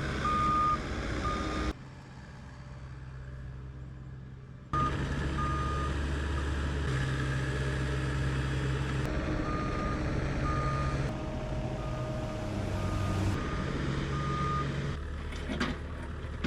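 Heavy excavator's diesel engine running under load with its travel alarm beeping in short, repeated beeps at one pitch. The engine and beeps drop away for about three seconds near the start, then resume.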